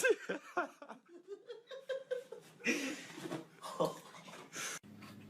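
A person laughing and giggling in short runs of rapid bursts.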